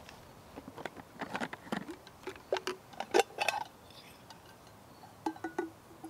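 Light clicks, taps and knocks of metal camp cookware being handled. Near the end come a few short ringing metallic clinks as the small aluminium kettle's lid is opened.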